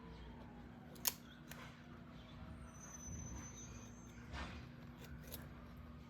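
Quiet hand work with small metal parts as a stainless steel banding strap is handled and threaded: a sharp click about a second in and a few fainter clicks, over a steady low hum.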